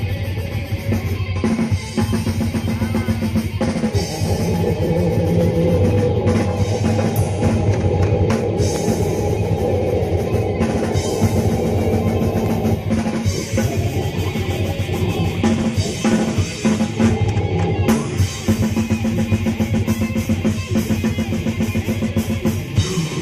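Rock band playing live, instrumental, with the drum kit and bass drum prominent.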